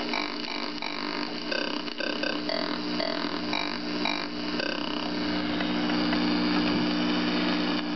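Casio Casiotone CT-301 keyboard playing a series of short notes on its croaky "Frog" preset voice through a small amplifier. The notes stop about five seconds in, leaving the amp's steady hum and noise, which comes from a faulty volume control and a noisy cord.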